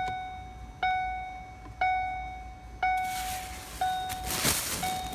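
Background music: a bell-like keyboard note repeated about once a second, each strike fading away, with a soft hiss in the second half.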